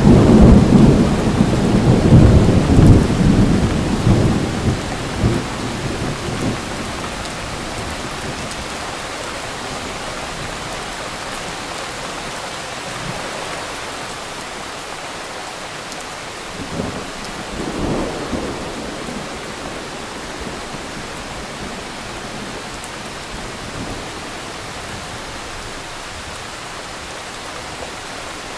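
A thunderstorm: a long roll of thunder, loudest at the start and dying away over about six seconds, over steady rain. Two short, fainter rumbles of thunder come about 17 and 18 seconds in.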